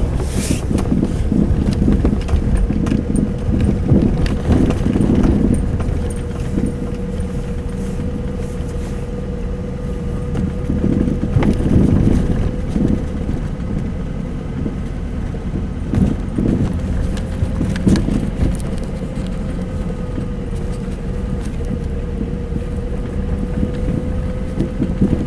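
Mazda 6 on the move, with steady low road and cabin rumble and a few short knocks at irregular intervals. The knocks come from the front right suspension, a fault not cured by replacing the strut bushing and upper ball joint or by disconnecting the trailing link.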